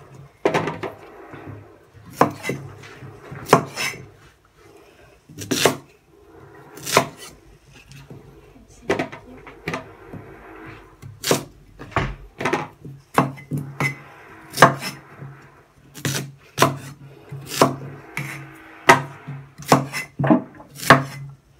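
Cleaver chopping peeled sweet potato on a wooden cutting board: sharp knocks of the blade through the potato into the wood. The chops are irregular, about one a second at first and coming faster from about halfway through, over a steady low hum.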